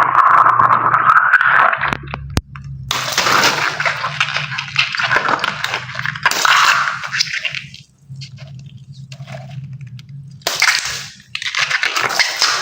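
Water gushing and spraying out of cut water balloons in several hissing bursts, with short quieter gaps between them and a sharp click a little over two seconds in.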